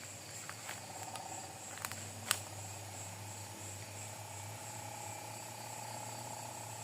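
Crickets and other night insects trilling steadily, a thin high chirring with a lower, rapidly pulsing trill joining about a second in. A few sharp clicks sound around two seconds in, one louder than the rest.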